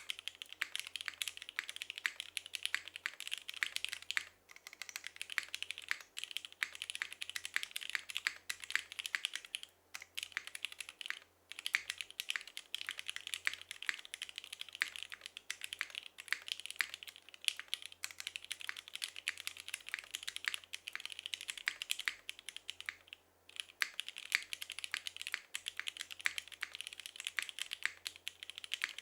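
Fast continuous typing on a top-mounted mechanical keyboard with an aluminium plate and no foam, fitted with lubed SP-Star Meteor White linear switches and GMK keycaps: a dense run of sharp clacks, broken by a few short pauses. The sound is a bit thin.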